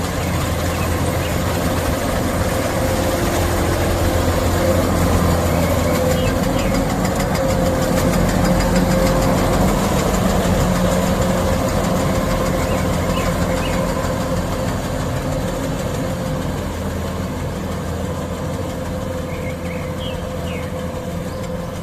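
An engine running steadily, getting a little louder toward the middle and easing off near the end.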